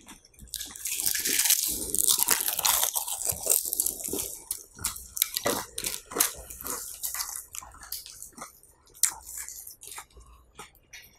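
Crisp potato chips being crunched and chewed: a few seconds of dense crackling about a second in, then scattered sharp crunches.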